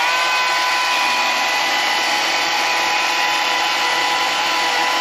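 Two-stroke Husqvarna chainsaw at full throttle, engine held at a steady high pitch.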